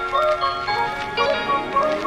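Background instrumental music: a melody of held notes that step from one pitch to the next.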